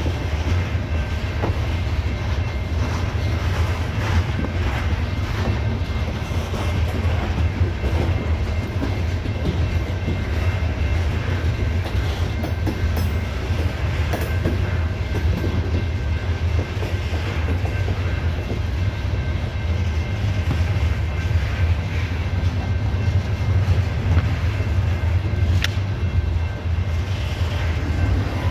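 CSX coal train's open hopper cars rolling past close by: a steady low rumble with the clickety-clack of wheels over the rail joints.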